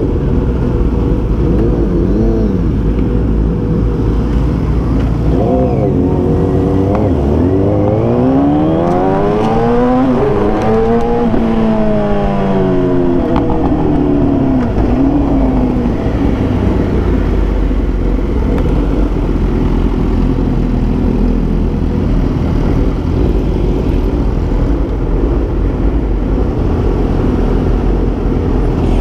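Kawasaki ZX-10R's inline-four engine running under way. The engine note climbs and then falls off between about six and fifteen seconds in, as the bike revs up and backs off.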